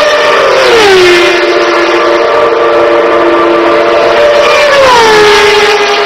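1994 Formula 1 cars passing flat out at over 300 km/h: a loud, high engine wail whose pitch drops sharply as each car goes by, once about a second in and again about five seconds in, with engine sound continuing between the passes.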